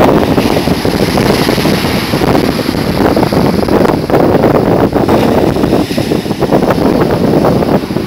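Strong wind buffeting the microphone in loud, uneven gusts, over the wash of ocean surf breaking and running up the sand.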